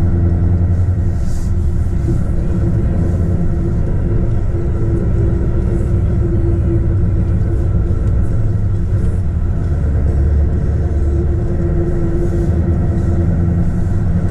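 Heavy truck's diesel engine running at steady revs while driving, a low, even rumble.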